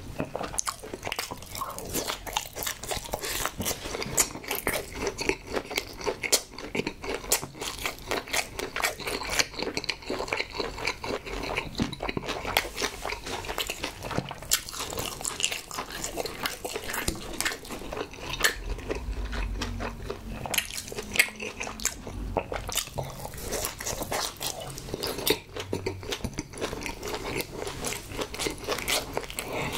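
Close-miked biting and chewing of chewy braised pig's trotter (jokbal), a constant run of quick wet clicks and smacks from the mouth.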